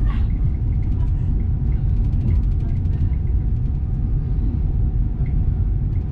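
Steady low rumble of an Avanti West Coast passenger train rolling on the rails, heard from inside the carriage, with faint fine ticking at times.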